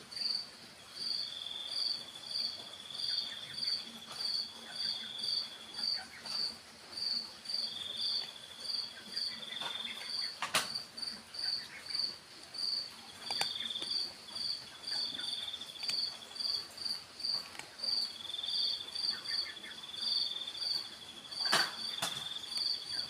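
Insects chirping: a regular chirp about twice a second, overlapped by a second insect trilling in phrases of one to two seconds. Two sharp clicks come through, one near the middle and one near the end.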